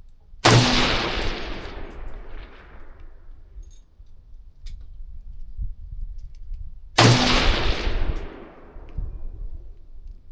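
Two gunshots about six and a half seconds apart, each a sharp crack followed by a long rolling echo that fades over a couple of seconds.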